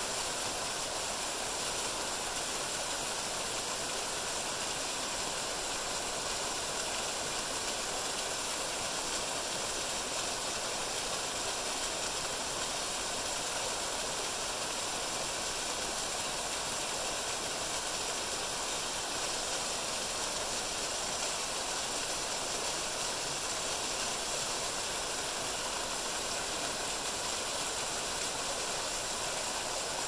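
Waterfall running: an even, steady rush of falling water, mostly a bright hiss.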